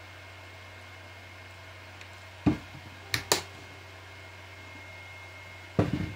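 Bottles being handled and set down on a table: a knock about halfway through, two sharp clicks right after it, and another knock near the end, over a steady low hum.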